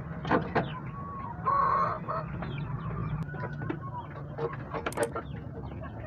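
Silkie chickens clucking, with one louder call about one and a half seconds in, a few sharp clicks, and a steady low hum underneath.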